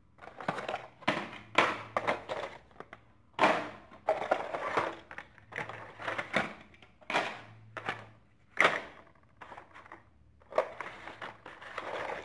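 Hot Wheels blister-card packaging being handled and opened: irregular crackling and crinkling of plastic and cardboard, with sharp snaps and clicks.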